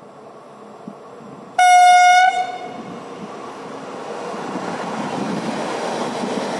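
Pesa 730ML diesel multiple unit sounding one short, loud single-note horn blast about a second and a half in, then running past, its rumble growing steadily louder as it nears.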